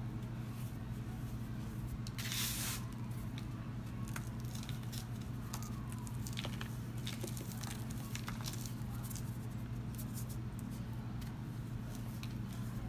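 Hands breaking and crumbling a pressed-powder ball: soft crunching and crackling as it falls apart, with one louder crumble about two seconds in.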